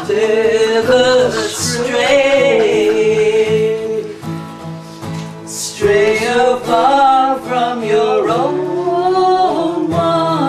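A woman singing a song to a strummed acoustic guitar, in two long phrases with a short break about five seconds in.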